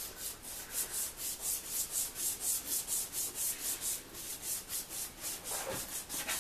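Hand-held Rain-X abrasive polishing pad wet-sanding a yellowed plastic headlight lens with lubricant, in quick back-and-forth diagonal strokes: a rhythmic rubbing hiss, about three strokes a second. This is the first sanding stage, which takes off the yellowing.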